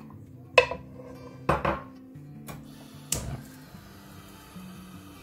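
Utensils knocking and clinking against a frying pan with oil in it: a few sharp knocks within the first three seconds. Background music plays throughout.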